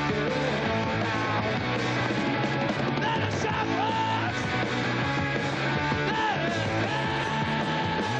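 A rock band playing with a singer: punk/new wave style rock music with steady bass notes, drums and guitars under a shouted, sliding vocal line.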